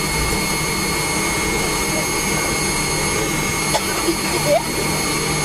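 Steady engine noise inside the cabin of a McDonnell Douglas MD-90 taxiing, its rear-mounted IAE V2500 turbofans running near idle: an even rushing hum with a thin steady whine on top.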